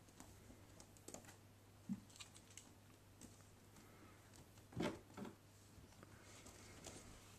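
Kittens scrambling about inside a duvet: faint rustling of the quilted fabric with scattered small clicks and a few soft thumps, the loudest a little before five seconds in.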